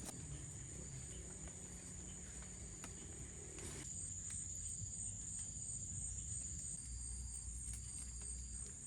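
Forest insects calling: a steady high-pitched shrill trill, with short chirps repeating about once a second and a low rumble underneath.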